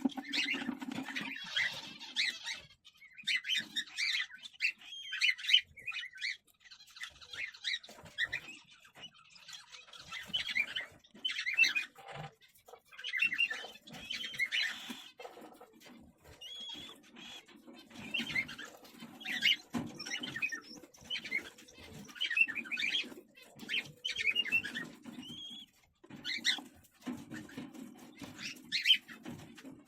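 Cockatiels chirping and squeaking in rapid, scratchy bursts broken by short pauses.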